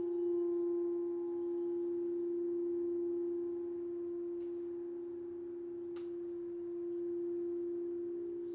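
Crystal singing bowls ringing in long, steady tones, several pitches sounding together, with a new higher tone joining near the end. A faint tick about six seconds in.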